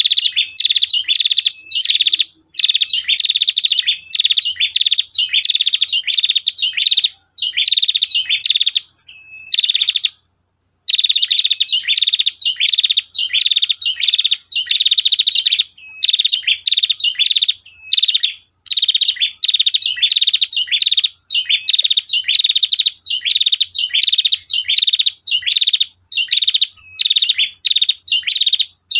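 Female prinia (prenjak betina) calling in a long run of fast, dry trilled notes, repeated almost without pause; the calling breaks off briefly about ten seconds in and then resumes.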